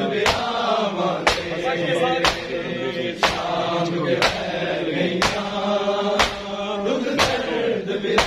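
Men beating their chests in unison (matam), a sharp collective slap about once a second, under a chanted lament (noha) sung by male voices.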